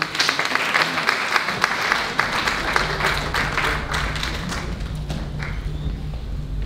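Crowd applauding, a dense patter of hand claps that thins out after about four seconds, with a low steady hum underneath in the second half.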